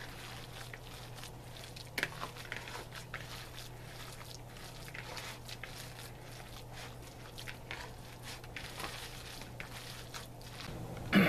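Hands kneading and squishing raw hamburger meatloaf mixture in a plastic bowl: soft, irregular wet squelches and smacks, with a steady low hum underneath.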